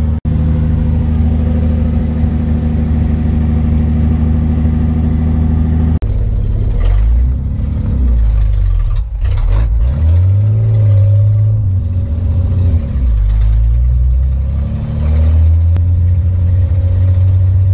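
1952 Dodge Meadowbrook's flathead straight-six running with its exhaust cut off, heard from inside the cabin while driving. A steady drone for the first several seconds, then, after a cut, the revs rise and fall several times.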